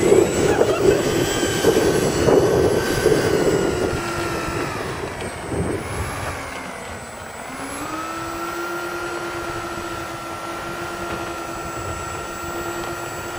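Jet engines of a radio-controlled Boeing 737 model running as it taxis, a steady whine. The whine is louder and rougher for the first few seconds, dips in pitch about six seconds in, then comes back up and holds steady.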